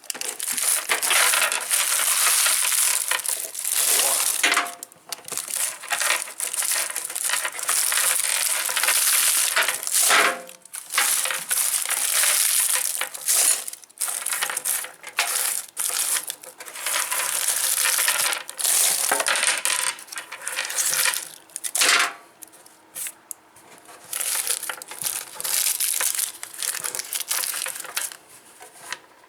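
Wrapped sweets being handled in quantity: wrappers rustling and hard candies clattering against each other, in irregular bursts with short pauses.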